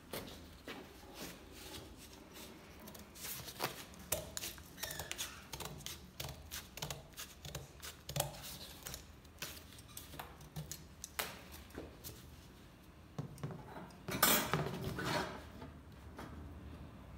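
Handling noise: scattered light clicks and taps as a cardboard disc on a wire rod is moved against a clear plastic tub, with a louder stretch of scraping and rustling about fourteen seconds in.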